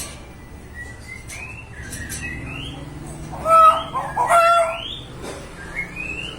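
Young common hill myna calling: a series of short upward-sliding whistles, with a louder chicken-like call about halfway through, a mimicked chicken sound.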